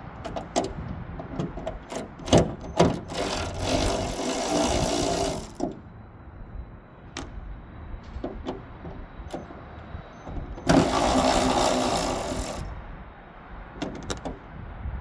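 A power tool with a size 13 socket spinning out the hood hinge bolts in two runs of about two seconds each, about three seconds in and near eleven seconds. Sharp clicks and knocks of the socket and bolts come between them.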